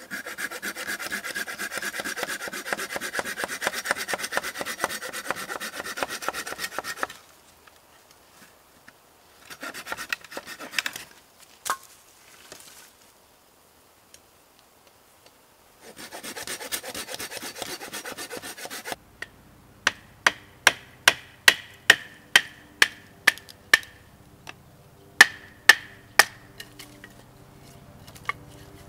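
A bowie knife scraping and shaving along wood in rapid strokes, in several spells. Later comes a run of sharp knocks, the blade striking wood about two or three times a second.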